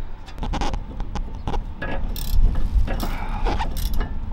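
Hand ratchet wrench clicking in irregular runs as a nut is turned, with scattered metal clanks and knocks.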